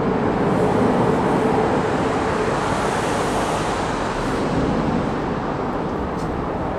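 Road traffic noise, a steady rush of passing vehicles that swells briefly near the middle.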